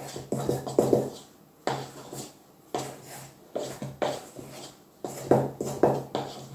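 Wooden spoon folding thick chocolate cake batter in a stainless steel pot: repeated strokes about once a second, each a scrape of wood against the metal with a soft wet slop of batter.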